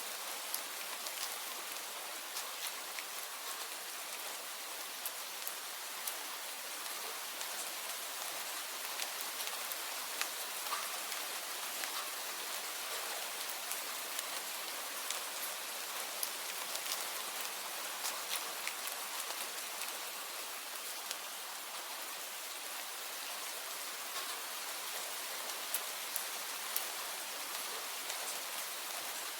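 Steady rainfall, an even hiss with many small drops ticking scattered through it.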